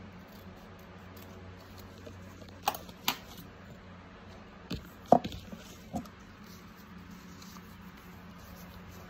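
Several sharp clicks and knocks of hard objects set down on a table top, as metal scissors and a glass jar are put down: two about three seconds in, then a closer cluster about two seconds later, the loudest near the middle. A low steady hum runs underneath.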